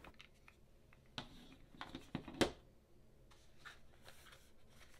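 Faint handling sounds: a few light taps and rustles as a plastic power adapter and its coiled cable are set down on a table and a small cardboard box is picked up, the sharpest tap about halfway through.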